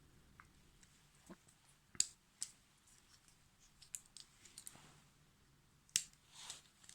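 Gerber MP600 Pro Scout multi-tool being handled, its fold-out tools and joints giving sharp metal clicks: two about two seconds in, a few lighter ones around four seconds, and another near six seconds with a short scrape after it. One of the tools is stiff enough to want oil.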